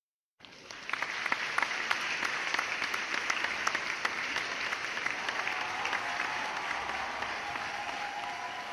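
Crowd applauding, a dense patter of many hands clapping that starts abruptly out of dead silence about half a second in and carries on steadily, easing a little near the end.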